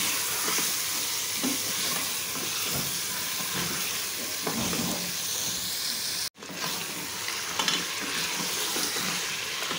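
Mutton pieces sizzling in hot oil in a pressure cooker pot as they are browned (bhuna) until they change colour, stirred with a wooden spoon that scrapes and knocks against the pot. The sound cuts out for an instant a little over six seconds in.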